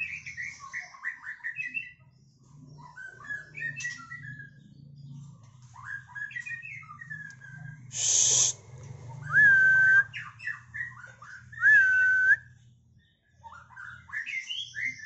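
Male white-rumped shama, freshly through its moult and singing again, giving short phrases of quick chirps and sliding notes. A harsh noisy burst comes a little past halfway, followed by two loud clear whistled notes.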